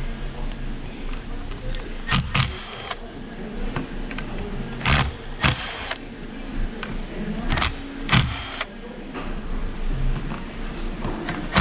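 Cordless power driver spinning out the bolts of the transmission valve body's shift solenoids in about seven short bursts, over a steady low hum.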